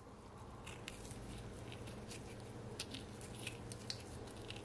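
Curry chicken gravy simmering in a non-stick pan, with faint scattered small pops and ticks from bubbles breaking over a low steady hiss.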